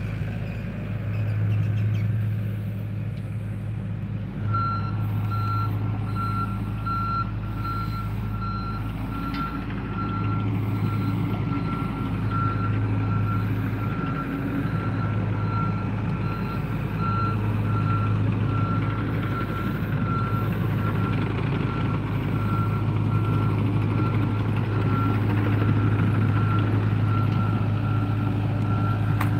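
John Deere compact excavator's diesel engine running steadily, with its motion alarm beeping evenly, about two beeps a second, starting about four seconds in.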